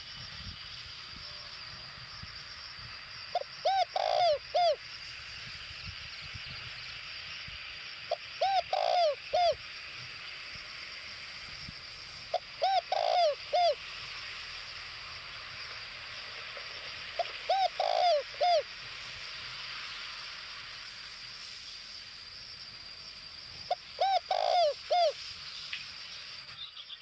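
Spotted dove cooing, a decoy bird of the kind kept to lure wild doves: five phrases of about four low coos each, spaced roughly four to five seconds apart. A steady high hiss runs underneath.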